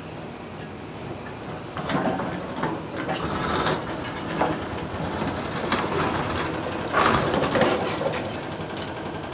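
A heavy excavator works at breaking out old rail track. A steady diesel hum runs under it, and about two seconds in irregular metallic clanks and scraping begin, with several louder hits.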